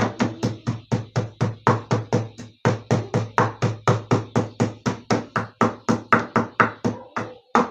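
Pestle pounding leaves in a mortar, a steady run of thuds about four a second, crushing them to bring out their juice.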